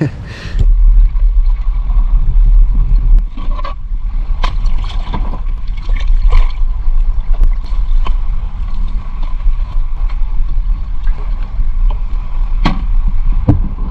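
Small boat's engine running, a heavy low rumble that comes in suddenly about half a second in, with scattered knocks and clatter over it.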